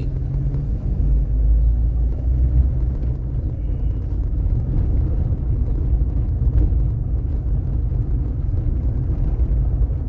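Steady low rumble of a car driving slowly over a street of interlocking concrete pavers, heard from inside the cabin.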